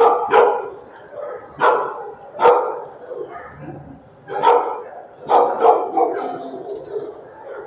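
Shelter dogs barking in sharp single barks, about seven loud ones in a few clusters, over fainter barking, echoing off the hard walls of the kennel block.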